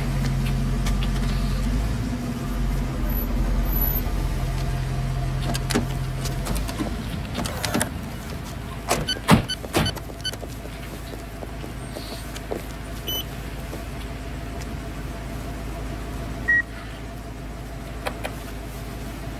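Street traffic with a car engine running for the first six seconds or so. Later come a few sharp clicks and short electronic beeps from an ATM's keypad, with one single beep near the end.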